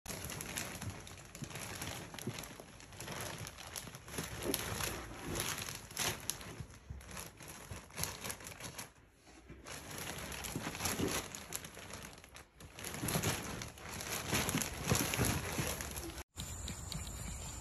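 Clear plastic bag crinkling and rustling in irregular bursts as a dog burrows into it and shifts about inside it.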